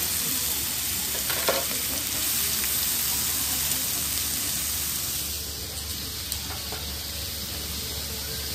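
Meat sizzling steadily on a hot grill, with a brief tap about a second and a half in.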